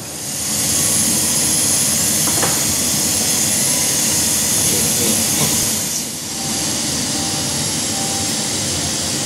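Cooling fans of a BGA rework station blowing a loud, steady rush of air to cool the top and bottom heaters. The rush swells up within the first second and dips briefly about six seconds in.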